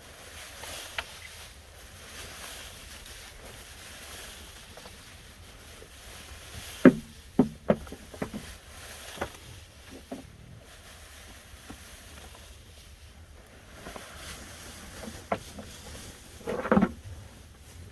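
Goats jostling around the farmer at feeding time, with a cluster of sharp knocks and clatters about seven seconds in, a few more shortly after, and a short louder sound near the end, over a steady outdoor background.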